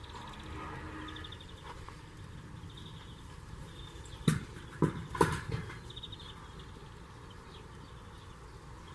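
Slingshot shooting at a home-made self-righting target: three sharp knocks within about a second, a little over four seconds in, as the ball strikes the target.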